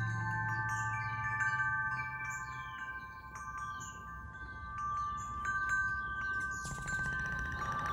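Metal-tube wind chime ringing, its tubes struck at irregular moments so that several clear, sustained tones overlap and die away slowly.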